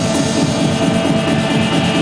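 Live electronic noise music played on a tabletop rig of synthesizers and controllers: a loud, dense wall of harsh noise over a fast-pulsing low rumble, with a steady mid-pitched drone held throughout.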